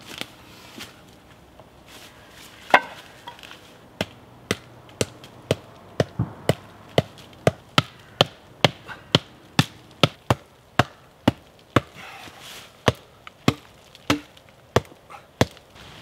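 Wooden stakes being driven into the ground with a wooden striker: a single knock, then a steady run of wood-on-wood blows about two a second, a short pause, and a few more blows near the end.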